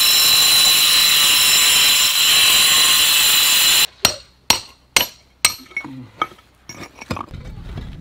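Angle grinder with a diamond blade cutting through a concrete cinder block, a steady high-pitched grinding that cuts off suddenly just before halfway. Then four sharp hammer strikes on the scored block about half a second apart, followed by a few lighter knocks and a low scrape near the end.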